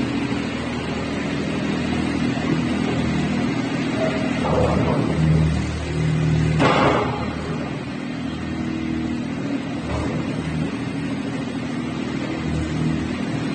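DIGBOY V800 skid steer loader's engine running steadily, with short noisy sounds over it about four and a half and seven seconds in (the second the loudest) and a fainter one near ten seconds.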